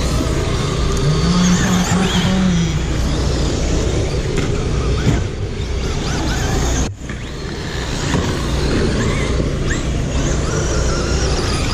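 Radio-controlled dirt oval race cars running laps, with short high motor whines rising and falling over a steady noisy hum. The sound drops out briefly about seven seconds in.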